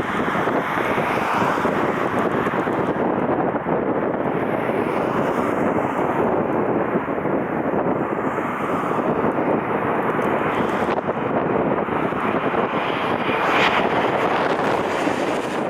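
Jet airliner's engines running as it passes, a loud steady noise, with strong wind buffeting the microphone.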